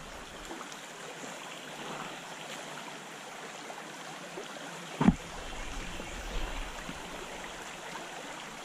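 Shallow stream riffle, water running steadily over gravel and rocks. A single brief thump about five seconds in.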